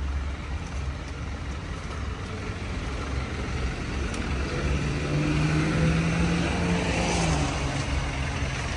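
City street traffic with a motor vehicle's engine passing close by, growing louder to a peak about five to seven seconds in and then fading.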